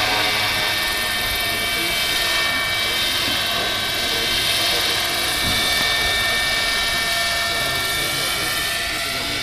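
Giant radio-controlled model helicopter with a five-blade main rotor in flight, giving a steady high-pitched whine over a continuous hiss.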